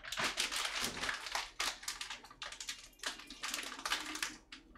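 Plastic packaging crinkling and rustling in irregular bursts as a package of frozen pork neck is handled and opened.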